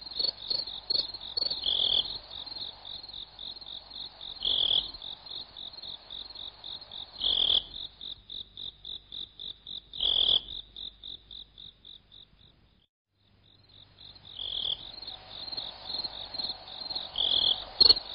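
High, rhythmic chirping, about four quick pulses a second, with a louder chirp every two to three seconds. It drops out briefly about twelve seconds in, then resumes.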